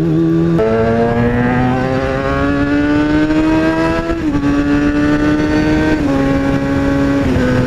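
2003 Kawasaki ZX-6R 636's inline-four engine under way, climbing steadily in pitch as the bike accelerates, then dropping as it shifts up about four seconds in, and holding a steady pitch with small drops later. The engine is freshly valve-adjusted and running smoothly.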